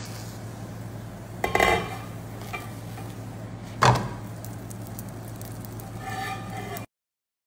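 A plastic spatula clatters, knocks and scrapes against a non-stick frying pan as a date flatbread is worked and turned. There is a clatter about a second and a half in, a single sharp knock near the middle, and a scraping rattle near the end, over a steady low hum.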